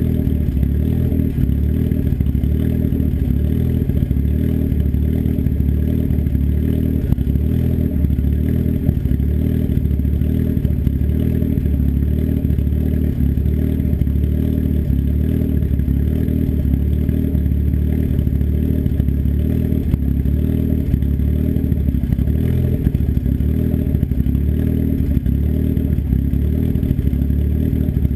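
Turbocharged engine with an S257 turbo and custom cams idling through an open dump, a 3-inch turndown off the downpipe with no muffler, still warming up after a cold start. A steady, even pulsing idle with no revving.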